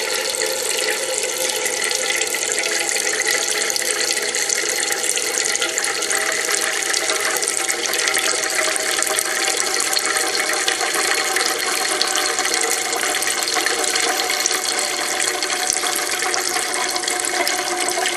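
Water running in thin streams out of a homemade Kelvin water dropper and splashing steadily into its collector cans, a constant trickle with a few ringing tones in it. The sound cuts off abruptly at the end.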